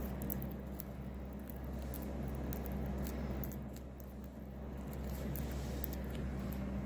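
Budgerigar pecking and husking seeds from a millet spray: many small, irregular clicks and crunches over a steady low hum.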